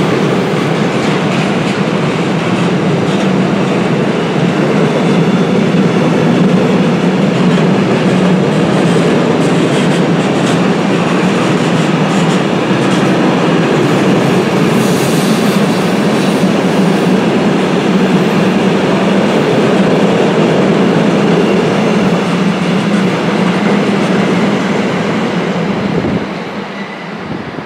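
Freight train of loaded double-deck car-carrier wagons rolling past with a loud, steady rolling noise of wheels on rails. The noise drops off sharply about 26 seconds in as the last wagon goes by.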